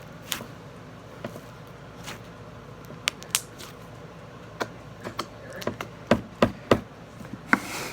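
Slime being handled and poked on a tabletop, with scattered soft clicks and taps and a quick run of louder knocks about six to seven seconds in.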